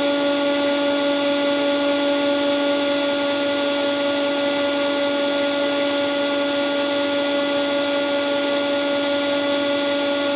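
Ventilation system running steadily: a constant hum with a strong low tone over an even rush of air.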